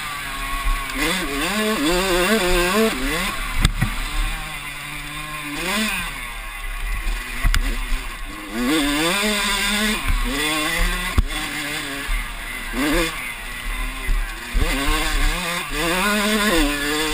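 Yamaha YZ85 two-stroke dirt bike engine, its revs climbing and dropping again and again as it is ridden hard through the gears, with wind rumbling on the onboard microphone. A few sharp knocks come through along the way.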